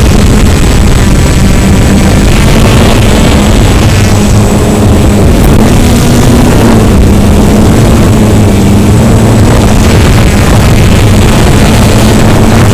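Toy quadcopter's motors and propellers buzzing steadily, loud and close, with a low hum that wavers slightly in pitch as the throttle shifts.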